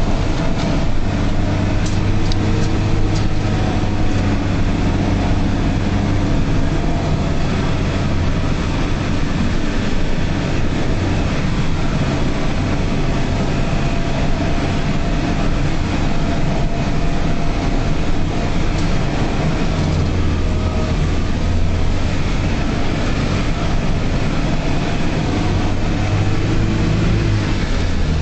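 UAZ off-road vehicle's engine running under load, with rumble and rattle from a rough mountain track, heard from inside the cab. The engine note shifts a few times, around two-thirds of the way in and again near the end.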